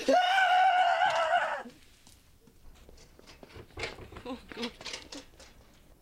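A loud, high-pitched scream lasting about a second and a half, rising slightly in pitch. A few faint short knocks follow a couple of seconds later.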